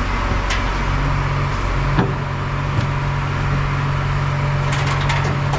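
Truck engine idling steadily, with a few light metallic clicks and knocks over it: one about two seconds in, and a short cluster near the end.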